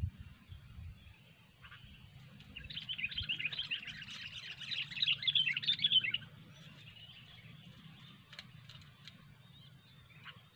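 Sooty-headed bulbul (kutilang) giving a rapid, dense chatter of chirps for about three and a half seconds, followed by a few single short calls near the end. A low thump comes at the very start.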